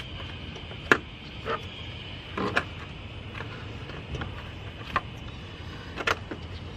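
Plastic electrical connectors in a car's engine bay being handled and pushed together by hand: about four sharp clicks and a few smaller knocks over a steady low background noise.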